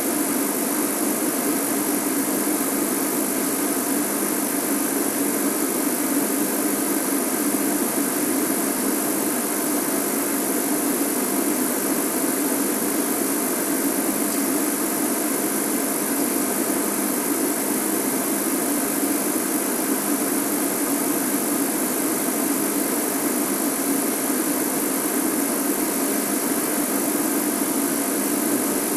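Game-drive vehicle's engine idling, a steady, unchanging hum.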